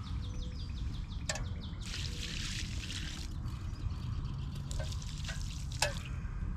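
Water poured off from a cooking pot, splashing out for about a second and a half, with a few sharp clicks before and after.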